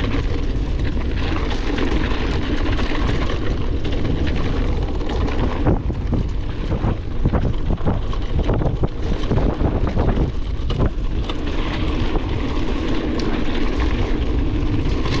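Wind buffeting an action camera's microphone on a moving mountain bike, a steady rumble, with a run of knocks and rattles from the bike over rough trail through the middle.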